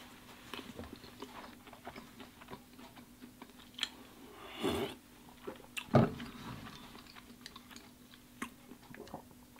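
Close-up chewing and mouth sounds of a man eating, small wet clicks throughout. Around the middle comes a short swallow from a bottle, and about six seconds in a sharp knock, the bottle set down on the table.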